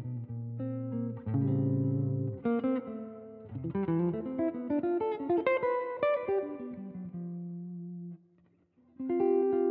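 Background music on guitar: plucked notes and chords over sustained bass notes, dropping out briefly near the end and then coming back in.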